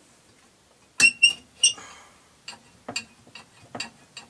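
Small metal parts of a jukebox mechanism clinking and clicking as they are worked by hand: three sharp, ringing clinks about a second in, then several lighter clicks.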